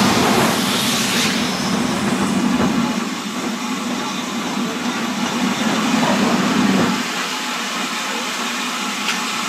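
Steam railway train passing slowly: the LB&SCR E4 class tank engine No. 473 goes by with a hiss of steam about its wheels in the first second, then its coaches roll past with a steady rumble of wheels on the rails.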